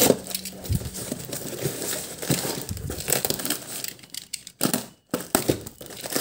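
Clear plastic wrapping and packing tape on a cardboard box crinkling and tearing as hands pull the box open, an irregular run of crackles with a short break about four and a half seconds in.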